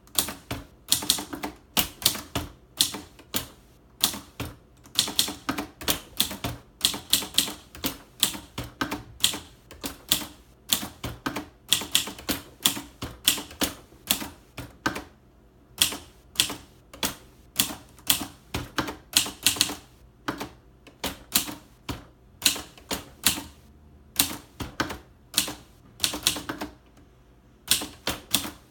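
Typing on a 1953 Gossen Tippa B ultraportable typewriter: rapid, irregular keystrokes as the typebars strike the platen, broken by a few short pauses.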